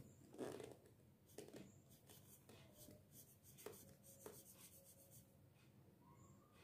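Faint scratching of a felt-tip marker's tip on drawing paper as it colours in, in short irregular strokes.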